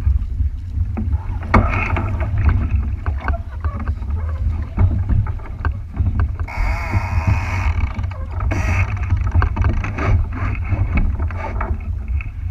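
Wind buffeting the microphone and water noise aboard a small boat on open water, a steady low rumble with scattered splashes and knocks. A brief, louder, harsher sound comes about halfway through.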